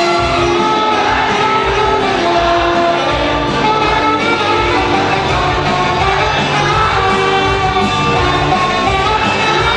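A live band playing loud rock music, with guitar and held melodic notes over a steady bass and drums, and some singing.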